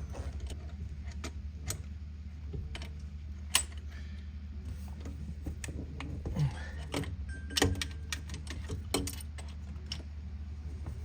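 Scattered light clicks and knocks of metal plumbing fittings and tools being handled, with a steady low hum underneath.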